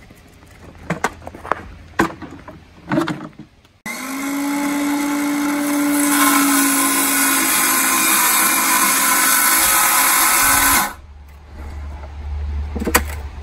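Cordless circular saw cutting the corner out of a wooden drawer: a few knocks as the drawer is handled, then the saw starts suddenly about four seconds in and runs steadily. It gets louder about two seconds later as it cuts, then stops abruptly about three seconds before the end.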